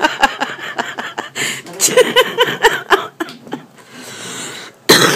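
A person's voice in short, quick bursts mixed with rustling bedding and small clicks and knocks as someone shifts about on a hospital bed, with one loud rustle near the end.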